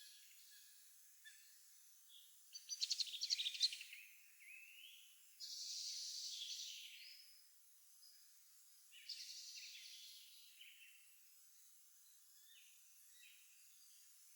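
Spring songbirds singing: a rapid clicking trill about two and a half seconds in, a fuller song phrase about five and a half seconds in and another about nine seconds in, with softer chirps between.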